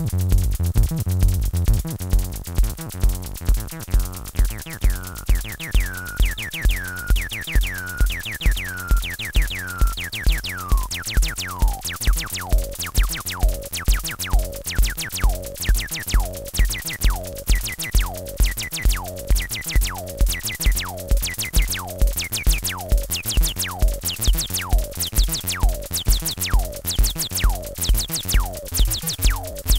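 Acid electronic music from an Acidlab Bassline 1 and a Korg Monotribe: a drum-machine kick at about two beats a second under a bass line. From about four seconds in, short synth notes join, each falling sharply in pitch as the 303-style resonant filter sweeps down, and they come faster after about ten seconds.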